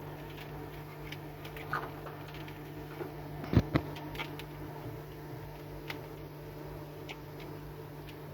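A steady low mechanical hum with scattered light clicks, and two sharp knocks in quick succession about three and a half seconds in.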